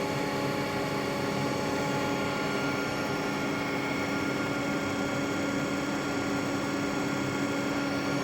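Elliott 903 computer's engineer's loudspeaker giving a steady, very repetitive buzzing tone while the program runs in a tight loop, over a continuous machine-room hum.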